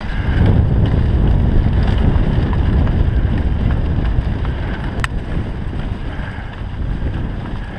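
Wind buffeting the microphone over the rush of a moving dog sled's runners on packed snow, a little quieter in the second half, with one sharp click about five seconds in.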